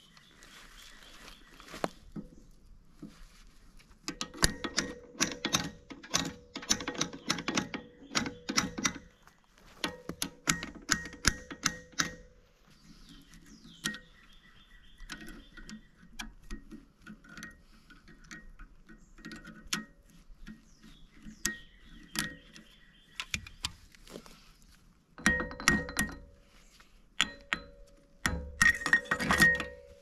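Bursts of rapid sharp metal knocks and clanks with a ringing note, from steel parts of a tractor's backhoe attachment being worked on, with quieter clattering between the bursts.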